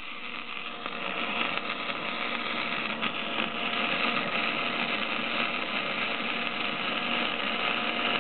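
Electric arc welder laying a weld bead: the arc gives a steady, unbroken sizzling hiss that holds without a break.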